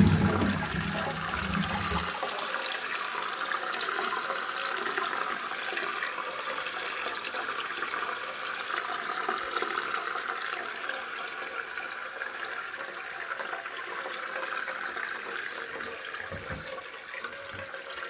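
Water running in an old toilet, a steady hiss that fades slightly toward the end. This toilet is the one whose siphon is due to be replaced.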